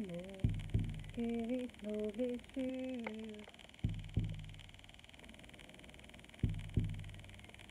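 A large hand-held frame drum is struck with a beater in pairs of beats, three double beats about three seconds apart, each with a low ringing tail. Between the first two pairs a woman hums a short tune of a few held and stepping notes.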